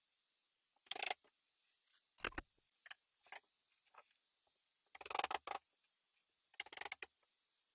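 Wooden clatter and knocks as turned wooden table legs are handled against a maple slab and pushed into its leg holes: several short bursts of rapid clicking, with a sharper single knock about two seconds in.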